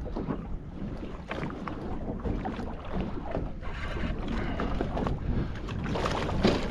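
Water sloshing against the hull of a small boat, with wind on the microphone and scattered irregular clicks and knocks.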